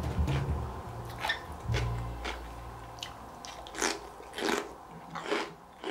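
Crisp crunching of a homemade vegetable pickle being bitten and chewed, a crunch roughly every second. Soft background music fades out about two seconds in.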